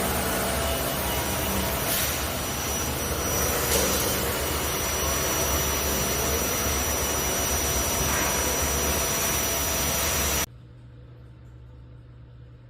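Vibratory stress relief exciter, an eccentric-weighted vibration motor, running steadily with a low hum and a thin high whine. About ten seconds in the sound cuts off suddenly, leaving only a faint hum.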